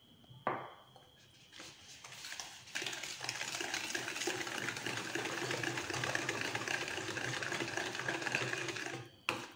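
Wire whisk beating biscuit crumbs and milk in a plastic bowl: a fast, even rattling scrape that starts about two and a half seconds in and stops just before the end. A single knock comes about half a second in.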